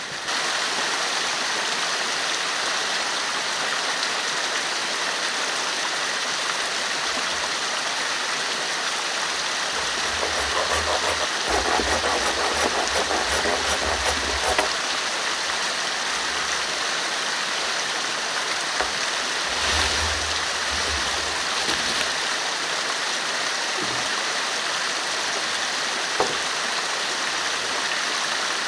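Steady rushing of a small forest stream. A little under halfway through comes a run of quick hatchet strokes on a wooden plank, about three a second, and later a few single wooden knocks.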